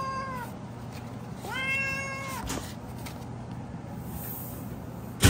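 Domestic cat meowing from inside a plastic pet carrier: two long, drawn-out meows held at a steady pitch, the first ending about half a second in, the second starting about a second and a half in. A sharp knock right at the end.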